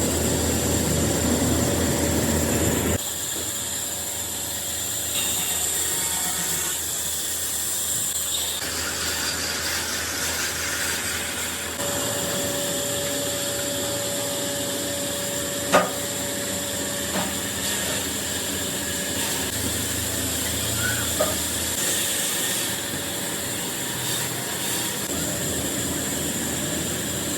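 Steady machine hiss and hum with a thin whine, changing character at several cuts, and one sharp knock about two-thirds of the way through.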